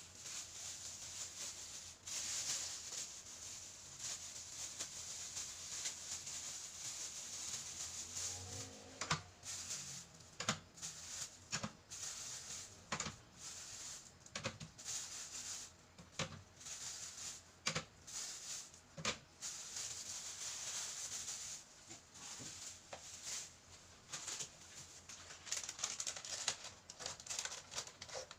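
Cleaning and handling things at a small refrigerator: scattered knocks and clicks of items and fittings being handled, over a steady hiss that stops about three quarters of the way through.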